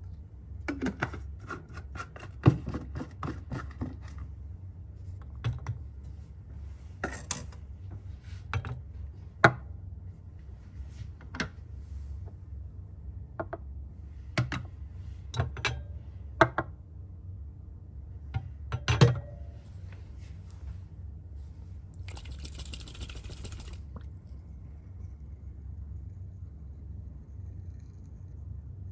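Sharp clicks and taps of glass test tubes being handled against each other and a test-tube rack, densest in the first few seconds, over a low steady hum. About 22 seconds in there is a couple of seconds of hissing, like liquid being shaken in a tube.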